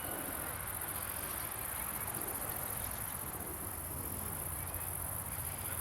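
Crickets chirping in a steady, very high, rapid trill over a low background hum.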